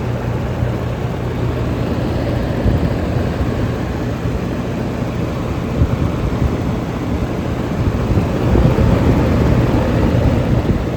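Air-conditioning condenser units running: a steady electric hum from the compressors under the rush of the fans. The sound swells louder about eight seconds in. One unit is judged to have a dead capacitor.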